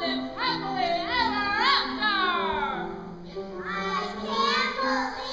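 Stage musical number: cast voices singing phrases that swoop up and down in pitch, over piano accompaniment.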